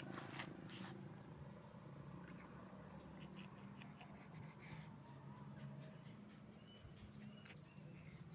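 Stray cat purring faintly and steadily while being stroked by hand, with a few scratchy clicks in the first second and light rustling of fur.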